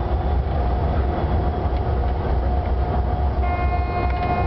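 Cab interior of a Vossloh G1000 BB diesel-hydraulic locomotive under way: a steady low engine and running rumble. About three and a half seconds in, a horn chord of several high tones starts and holds.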